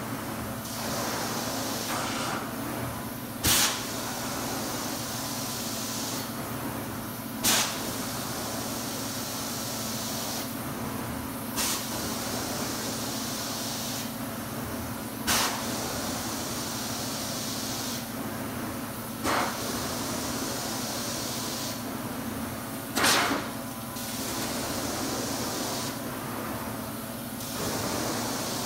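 Hot water extraction carpet-cleaning wand worked across carpet in strokes. A steady rush of vacuum suction and spray hisses, and its high hiss drops away for about a second roughly every four seconds. Each time there is a short loud burst, seven in all, as each stroke ends.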